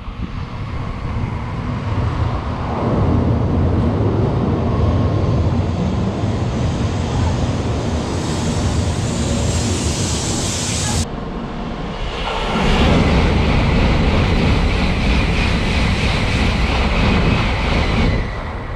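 Tokaido Shinkansen N700-series bullet train passing through the station at speed without stopping: a loud, steady rush of wheels on rail and air. The sound cuts off suddenly about eleven seconds in, and a second loud rush builds up a second or so later.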